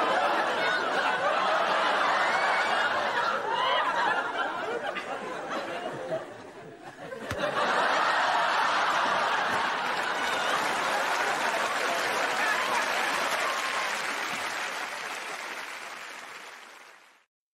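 Studio audience laughing, a long wave of laughter that dips briefly about seven seconds in, swells again, then fades away near the end.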